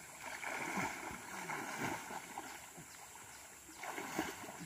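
Water sloshing and splashing as people wade chest-deep up a ditch, churning the water to drive fish into a net.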